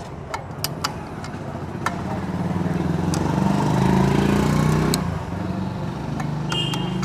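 A motor vehicle's engine running steadily, growing louder to a peak about four seconds in and then dropping away. A few sharp metallic clicks come from a spoke wrench on the wheel's spoke nipples.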